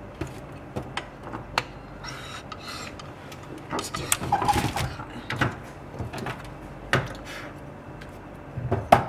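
Handling noise at a screen-repair bench: scattered clicks and knocks of parts and tools being set down and moved, with a rougher sliding stretch about halfway through and a sharper knock near the end.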